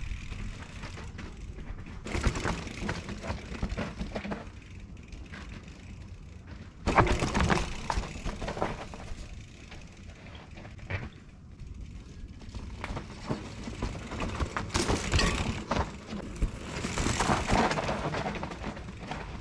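Electric mountain bike rolling over a rocky trail strewn with dry leaves: tyres crunching and crackling over leaves and stones, growing louder in a few swells as the bike comes close.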